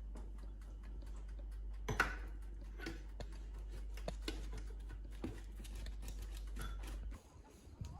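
Small scattered clicks and taps of hands and utensils working at a kitchen table, the sharpest about two seconds in, over a steady low hum that cuts off about seven seconds in.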